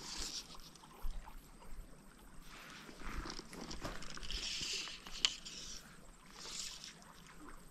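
Fly line hissing as it is stripped by hand and cast with the fly rod, in four short bursts, with one sharp click about five seconds in.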